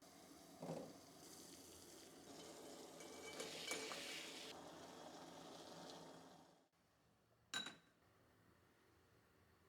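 Food sizzling in a frying pan while being stirred, with a few utensil clinks against the pan. The sizzle stops abruptly about two-thirds of the way through, and a single sharp clink follows.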